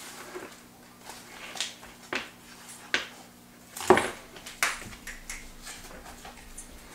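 Damascus cleaver chopping through a roasted chicken on a wooden cutting board: several sharp knocks and cuts spaced about a second apart, the loudest about four seconds in.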